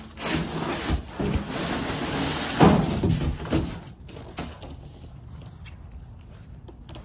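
A sheet of rigid foam insulation board slid off a stack and handled, the foam rubbing and scraping against the other sheets. This is loudest in the first four seconds, peaking just before the three-second mark, then settles into quieter handling with a few light knocks.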